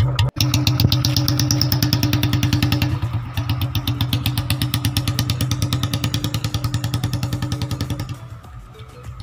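Royal Enfield Bullet's single-cylinder engine running with an even, heavy thumping exhaust beat through its chrome silencer. It cuts out for an instant near the start and is quieter in the last second.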